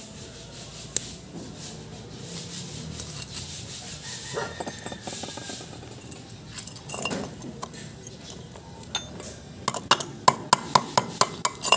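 Light handling of small metal parts and tools, with scattered rubbing and taps. Near the end comes a quick run of about eight sharp metallic clinks.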